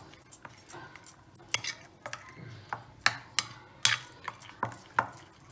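Metal spoon stirring thick green chutney in a bowl, clinking sharply against the bowl's sides at irregular intervals, with soft scraping between the clinks.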